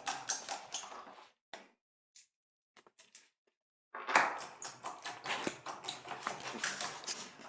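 Rapid, irregular clicking and rattling of a screwdriver driving small screws into a laptop's plastic base cover. It stops about a second in and starts again after a short pause.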